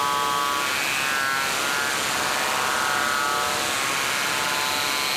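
Live electronic soundscape: a dense, steady buzzing noise with layered tones that slowly shift in pitch, and a high steady tone entering near the end.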